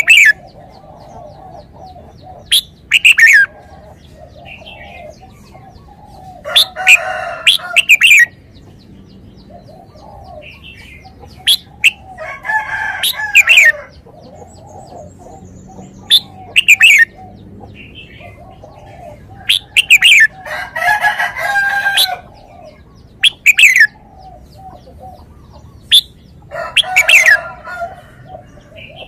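Red-whiskered bulbul singing: loud, clear whistled phrases made of quick sweeping notes, delivered in bursts every few seconds. Fainter, lower calls come in between the bursts.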